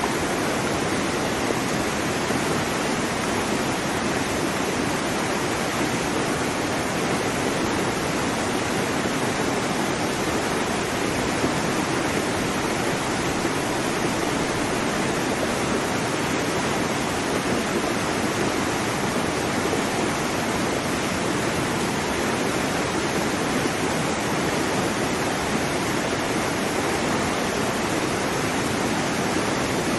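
Waterfall: water pouring down over rocks into a pool, a steady even rush with no breaks.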